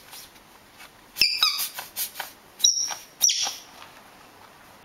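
Pink rubber squeaky dog toy squeezed by hand several times: a string of short, high squeaks starting about a second in.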